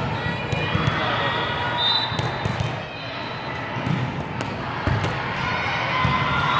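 Volleyballs being struck and bouncing in a large sports hall, a run of short knocks over the steady murmur of players' and spectators' voices.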